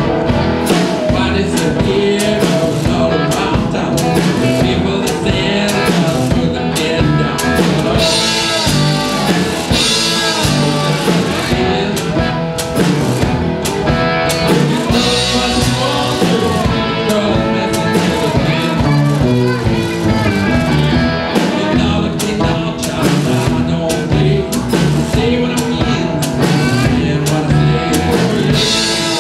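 Live blues-rock band playing cigar box guitars over a drum kit with a steady beat.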